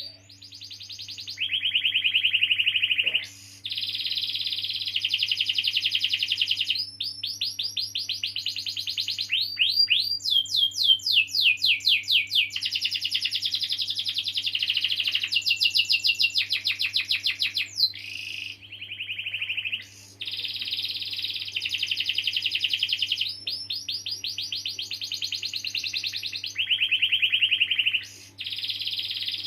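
Canary singing a long, nearly unbroken song of fast rolling trills, moving between rapid repeated notes and quick downward-sweeping notes, with only brief breaks.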